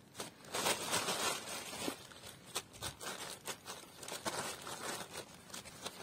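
Thin clear plastic sheeting crinkling and rustling in irregular bursts as puppies paw, chew and tug at it, busiest in the first two seconds.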